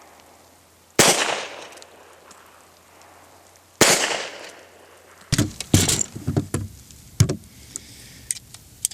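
Two pistol shots from a Beretta 96D double-action-only pistol in .40 S&W, about three seconds apart, each with a long echoing tail. Later come several shorter, irregular knocks and rustles.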